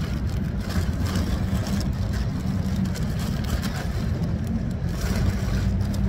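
Steady low hum of an idling vehicle engine, with light rustling of a plastic bag and clothes being handled.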